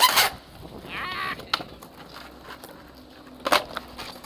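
Skateboard landing a flatground trick on stone paving: a loud clack of the board hitting the ground, then the wheels rolling, and a second sharp clack of the board about three and a half seconds in. A brief high-pitched call sounds about a second in.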